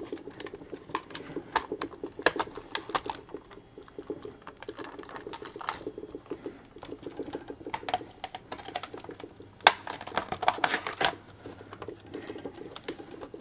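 Clear plastic battery-module shell and the sealed lead-acid batteries inside it clicking and creaking as they are pressed and shifted into place by hand. Irregular clicks and taps, busiest in the first few seconds and again past the middle, with the sharpest click about ten seconds in.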